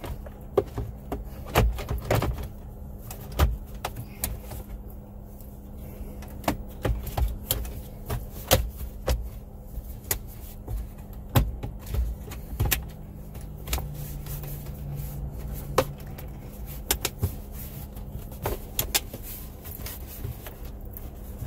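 Irregular plastic clicks and knocks of a Jeep Wrangler's dash trim bezel being pressed and snapped back into place by hand, over a steady low hum.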